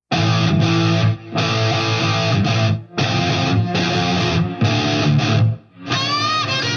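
Outro rock music with a distorted electric guitar, played in chopped phrases that stop abruptly several times, and a note bending up and down near the end.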